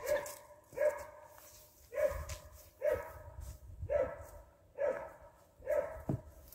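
A dog barking repeatedly, about one bark a second.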